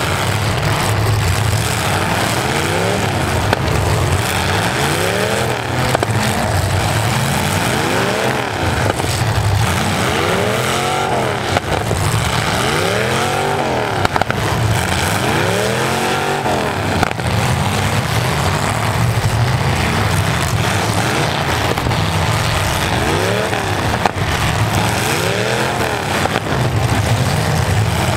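V8 engines of full-size demolition derby cars revving up and falling back over and over, over a steady low engine rumble, with a few sharp metal crashes as the cars collide.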